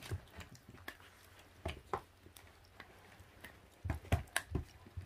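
Very young puppies chewing and tearing at raw meat: faint wet squishes and scattered soft clicks, with a short cluster of knocks about four seconds in.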